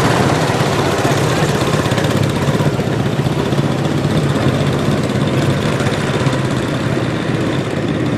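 Several quarter midget race cars' small single-cylinder engines running together in a steady, even drone as the pack pulls away at low speed.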